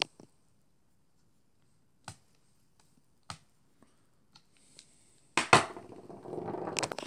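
A few single small clicks and taps, then about five seconds in a loud stretch of rubbing and knocking handling noise as the laptop and camera are moved.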